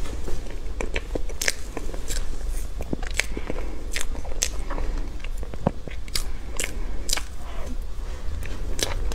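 Close-miked eating of a soft layered crepe cake: a run of sharp, irregular mouth clicks and smacks while chewing, with a fork cutting through the cake's layers.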